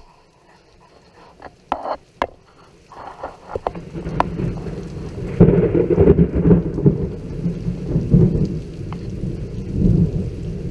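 Thunder from a lightning strike about 900 m away: a few sharp cracks about two seconds in, then a loud rolling rumble that builds from about four seconds in and swells in waves, with rain falling.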